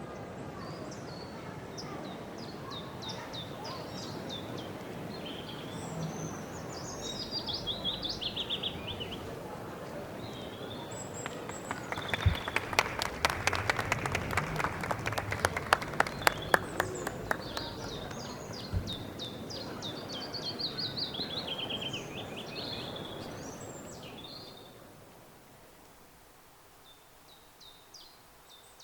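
Birdsong, quick chirping trills repeated throughout over a murmuring crowd, with a burst of clapping from a few people midway. The crowd noise falls away near the end while the birdsong continues.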